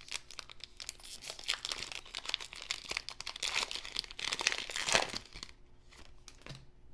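Trading card pack wrapper being torn open and crinkled, crackling densely for about five seconds before going quieter.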